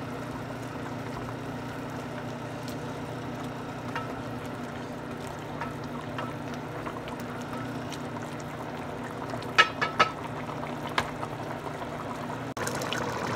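Pot of curry chicken and potatoes at a hard boil, bubbling steadily over a low hum. A few short sharp clicks come about ten seconds in.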